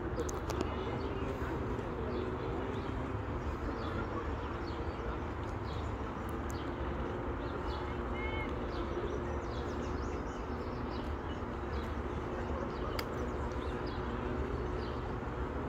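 Outdoor ambience: birds chirping in short calls over a steady low rumble with a faint hum, and one brief whistled note about halfway through.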